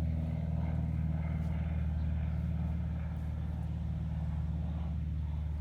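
Airplane flying overhead: a steady low engine drone.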